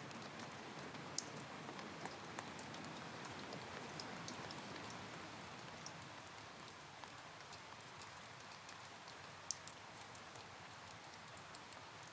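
Steady rain, with scattered individual drops ticking sharply on a surface; the rain eases slightly about halfway through.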